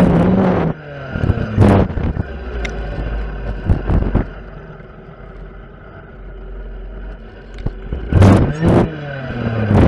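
Stihl FS 460 clearing saw's two-stroke engine, revved in short throttle bursts while clearing saplings. It revs several times near the start and again near the end, and drops back to a low, quieter idle in between.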